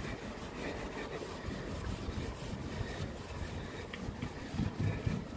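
Wire wool scrubbing back and forth over the lead cames and glass of a leaded light window: a steady scratchy rubbing.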